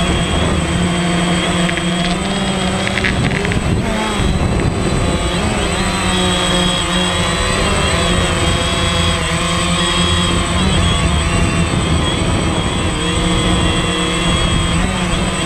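DJI Phantom quadcopter's motors and propellers buzzing steadily, heard up close from the camera on the drone itself. The pitch wavers up and down as the drone manoeuvres, with a thin steady high whine above it.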